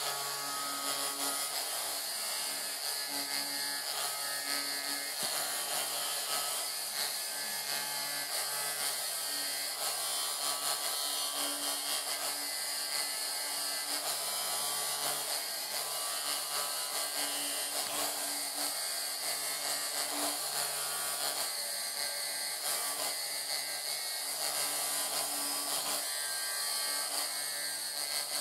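Rotary carving tool running steadily, its bit engraving flower rosettes into hard maple with a constant high hiss. A low motor hum rises and falls as the cut loads the bit.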